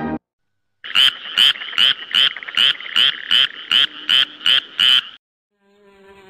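Sound effect of an animated video-label logo: a run of about eleven sharp, chirping pulses, two to three a second, that stops abruptly. Near the end a low buzzing hum starts.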